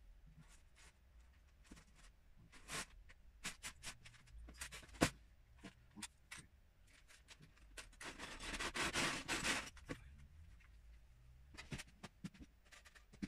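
Loose LEGO pieces clicking against each other and against hard plastic tubs as they are sorted and dropped in one by one, in scattered single clicks. About two-thirds of the way through there is a longer rattle of bricks being rummaged.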